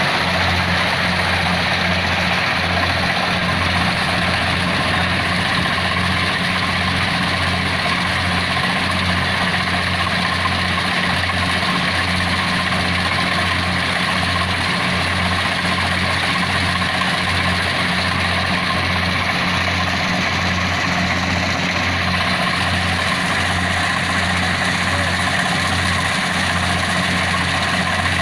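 Kubota DC70PH+ combine harvester's diesel engine running steadily, with a low, even throb under a broad mechanical whir.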